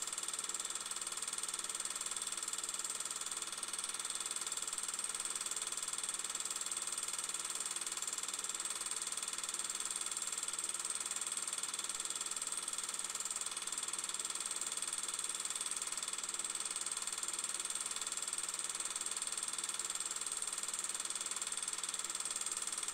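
Steady hiss and hum with a high whine, unchanging and without any separate events.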